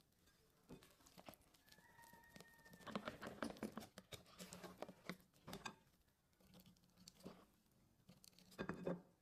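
Silicone spatula stirring thin cake batter in a glass bowl: soft wet patter and irregular clicks of the spatula against the glass, busiest about three to six seconds in and again just before the end.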